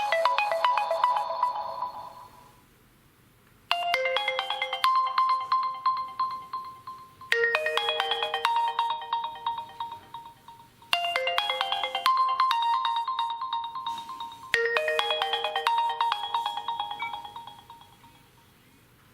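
Oppo A1K stock ringtone: a short bright chiming melody repeated four times, each phrase about three and a half seconds long, fading away near the end. The tail of the previous ringtone fades out in the first two seconds.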